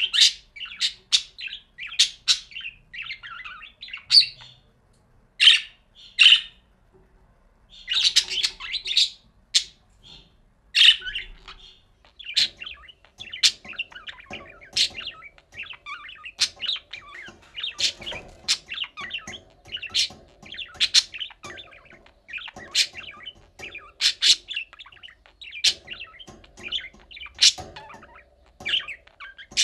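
Budgerigars chirping and warbling: a busy chatter with sharp, high chirps. The first ten seconds hold a few short pauses; after that the chatter runs on, with a sharp chirp about once a second.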